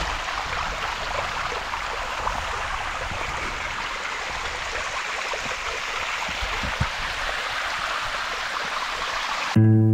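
Mountain stream water running over rocks, a steady rushing noise. Right at the end, guitar music cuts in abruptly.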